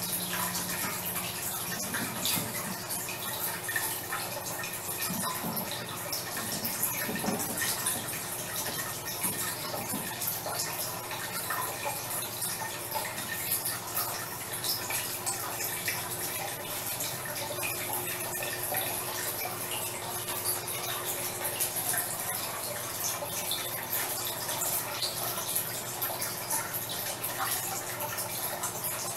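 Steady rushing noise like running water, with fine crackles and a faint low hum.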